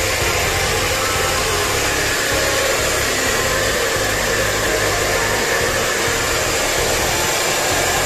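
Handheld electric hair dryer running steadily while drying a person's hair.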